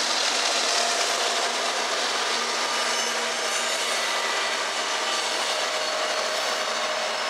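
Rear-end diesel locomotives of a coal train passing close by: engines running and steel wheels rolling on the rail, a steady grinding rush with faint whining tones through it.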